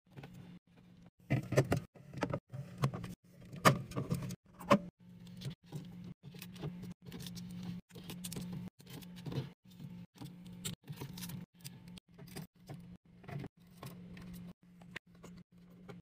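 Plastic applesauce cups, drink bottles and squeeze pouches being set into a refrigerator's shelves and door bins: a run of quick clicks, taps and knocks, with a few louder knocks in the first five seconds, over a low steady hum.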